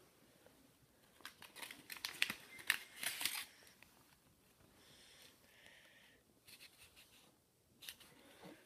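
Folded paper being handled: rustling and crinkling of paper pieces, with a busy run of crackles in the first few seconds, a softer rustle a little past the middle, and a few small clicks near the end.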